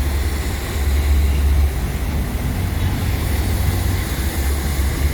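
Trailer truck's engine running with road noise, a steady low drone that eases slightly twice.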